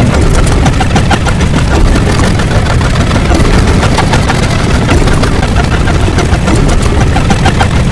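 Loud, steady, engine-like rumble with a crackle through it, heavy at the bottom end.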